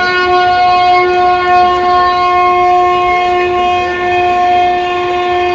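A single long, steady horn-like tone held at one unchanging pitch.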